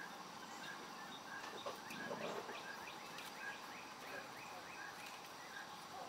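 Repeated high chirping from a small animal, about two chirps a second, with a run of quicker sliding notes between about one and three and a half seconds in.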